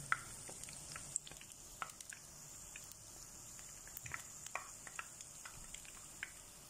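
Batter-coated cauliflower florets deep-frying in oil over medium heat: a faint steady sizzle with scattered small pops and crackles, a few a second.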